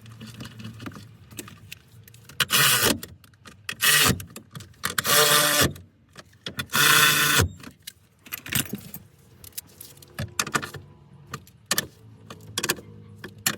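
Metal tools and hardware clanking and rattling while bolting down a shifter plate: four loud bursts of under a second each in the first half, then scattered small clicks and taps.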